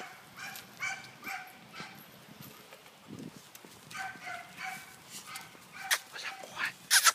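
Chained American Pit Bull Terriers yipping and whining excitedly in short high-pitched calls, several a second in bursts, with a few sharp clacks near the end.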